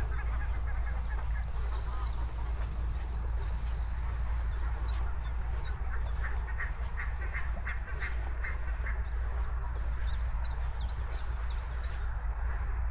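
Geese calling in a quick series of short honks from about six seconds in, over a steady low rumble, with small birds chirping high and briefly throughout.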